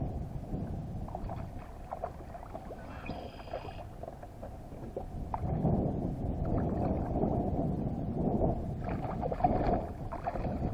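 Water splashing and sloshing beside a kayak as a hooked trout thrashes at the surface during the fight, louder in the second half.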